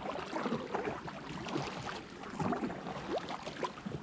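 A canoe being paddled across calm water: irregular light splashing and trickling of water around the paddle and hull, with small knocks and clicks.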